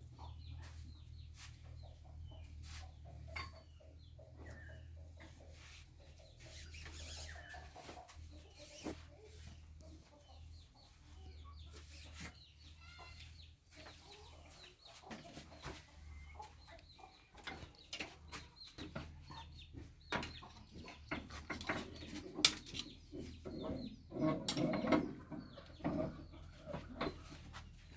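Chickens clucking over a steady low hum, with scattered sharp clicks and taps of metal parts being handled. The loudest is a single sharp click about two-thirds of the way through.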